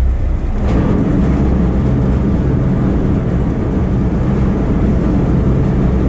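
A fishing boat's engine running as a steady low drone. Its note fills out about half a second in and then holds steady.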